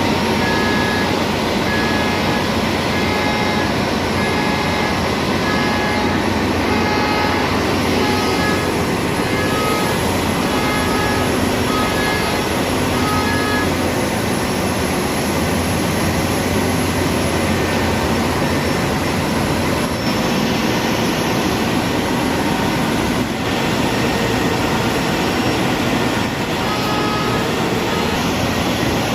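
Steady, loud machinery noise of a ship's engine room, with a repeating high beep that sounds on and off through the first half and again near the end.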